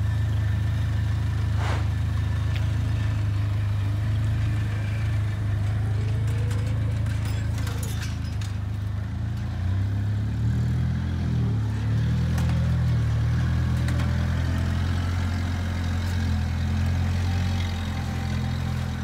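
Propane-powered Hyster 50 forklift engine running steadily while moving a load, its pitch rising and falling for a few seconds past the middle. A couple of brief knocks are heard early on and again about eight seconds in.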